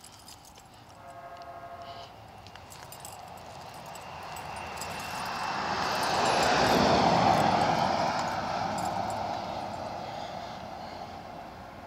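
A vehicle passes by: a rushing sound grows louder to a peak about halfway through, then fades away.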